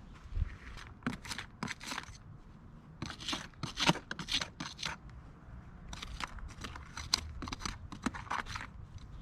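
Hands digging through potting soil and tearing sweet potato roots loose from a pot: quick scraping, crunching strokes in three flurries, the loudest about four seconds in.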